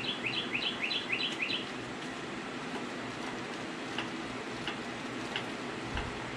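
A bird chirping: a quick run of about seven short chirps in the first second and a half, then a few single chirps spaced out, over a steady background hum.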